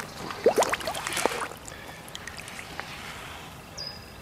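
Shallow water splashing and plopping around a carp held by hand at release: several sharp splashes with short bubbly pops in the first second and a half, then quieter lapping.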